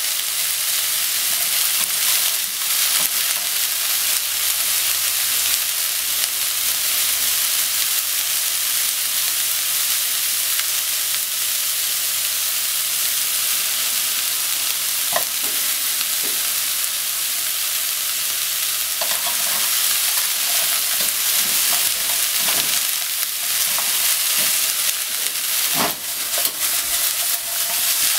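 Chopped cabbage sizzling in a hot frying pan as it is stir-fried, a steady high hiss, with a few light knocks of the chopsticks against the pan around the middle and near the end.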